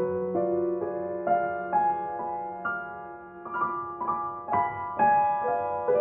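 Soothing classical piano music: a slow melody of struck notes, about two a second, each ringing and fading.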